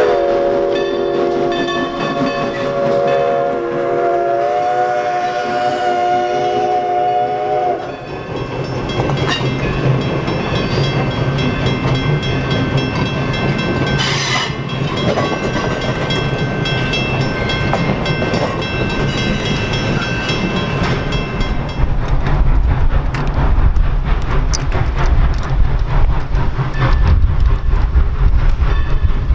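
Steam locomotive whistle blowing one long blast that cuts off about eight seconds in. The locomotive and its passenger coaches then roll past with wheel clatter on the rails. Near the end a deep, heavy rumble takes over.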